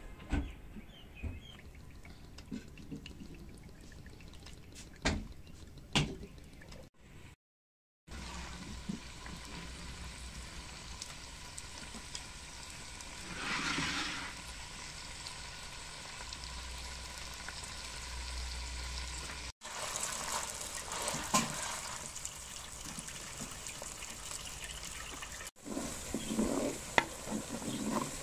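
Hot oil sizzling in a clay cooking pot, first with bay leaves and whole spices, then louder as sliced onions fry and are stirred. There are a few sharp clinks of utensils in the first several seconds, and a short louder burst of sizzling about halfway through.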